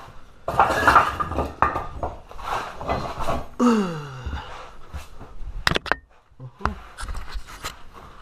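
Steel hand tools and suspension parts clinking and clattering against each other and the concrete floor during work under a car's front suspension, with a sharp ringing metallic clink shortly before six seconds in.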